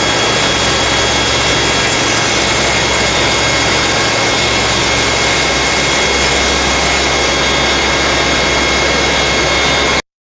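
INDEX lathe running and machining a part: a loud, steady machine noise with a constant high whine. It cuts off abruptly near the end.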